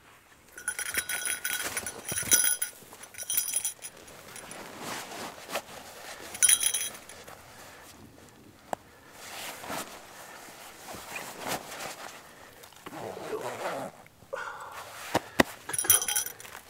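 Bursts of metallic jingling, several short ringing rattles, over the rustle and handling of a quilted dog coat being pulled onto a dog.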